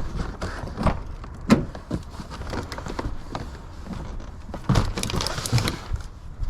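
Irregular knocks and thumps, with a busier clatter about five seconds in.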